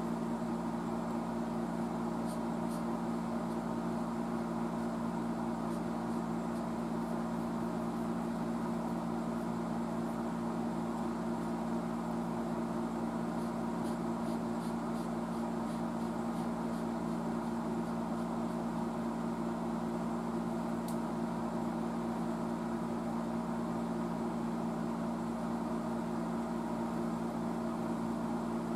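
A steady low machine hum that does not change, with a few faint light ticks here and there.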